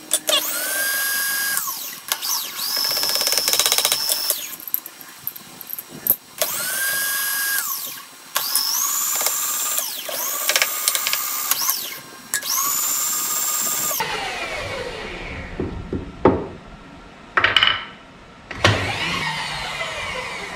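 Small electric motor running in about seven short runs of a second or two each. Each run starts with a rising whine that then holds steady before it stops. Near the end it is quieter, with a falling whine and a few sharp knocks.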